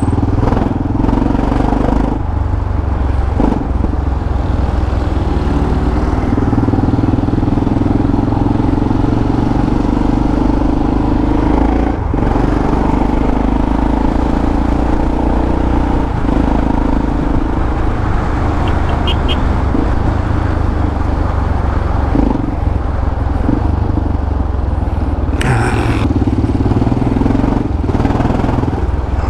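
Yamaha XT600E's air-cooled single-cylinder engine running through an old aftermarket Coyote exhaust while riding, a steady loud note with a few brief breaks, as with gear changes. A brief high-pitched sound near the end.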